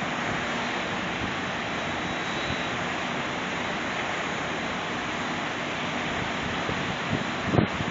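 Steady rushing wind noise, with a few brief low knocks about seven and a half seconds in.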